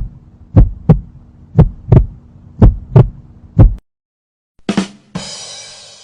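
Heartbeat sound effect: low double thumps, lub-dub, about once a second over a low hum. It stops after about four beats. Near the end a short sound comes, then a hissing, ringing noise that fades away.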